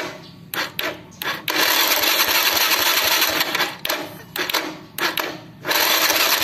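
Honda Supra 110 electric starter cranking the engine with a harsh clattering grind, in several presses, the longest about two seconds. It is the rough starter noise ("cak cak cak") that the mechanic says could come from the crankshaft, the armature shaft, the connecting gear or the starter chain.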